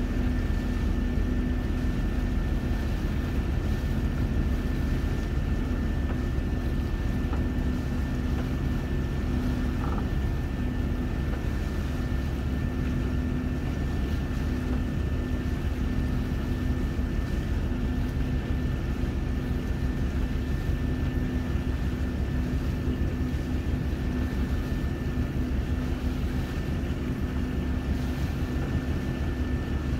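Steady drone of a boat's engine running at constant speed, with a deep rumble, a hum and a thin high whine that hold unchanged.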